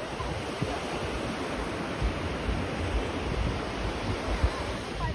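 Surf washing onto a sandy beach, a steady hiss of waves, with wind buffeting the microphone in low, uneven gusts.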